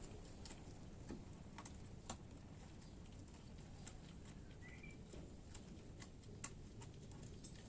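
Faint, irregular small clicks and ticks over a low steady background hum, with one short chirp about five seconds in.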